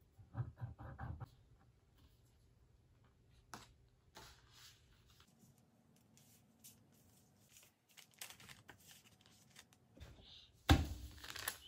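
Faint paper handling: a few soft squeezes of a glue bottle at the start, then light rustling and tapping of construction paper being pressed onto a paper bag, with a louder rustle near the end.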